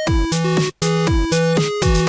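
Electronic intro music with a steady beat: synthesised notes over a thumping kick drum.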